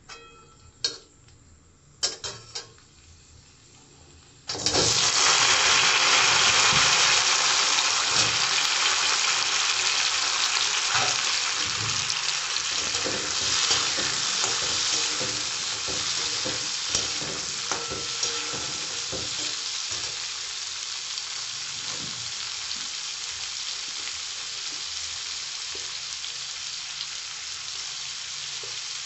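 A few short clicks, then about four and a half seconds in a sudden loud sizzle as peeled jackfruit seeds go into hot oil in a metal kadai. The sizzle slowly eases while the seeds are stirred with a metal spatula, with small scrapes and knocks in it.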